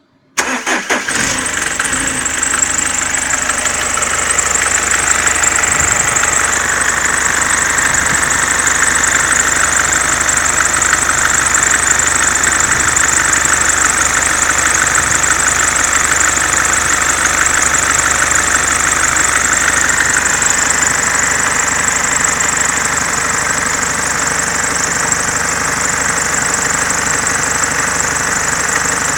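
Mercedes C-Class 220D four-cylinder diesel starting about half a second in and then idling loud, with a steady hissing whir from the poly-V belt drive over the engine sound. The owner suspects the alternator's overrunning pulley or the belt vibration damper. The whir eases somewhat after about twenty seconds.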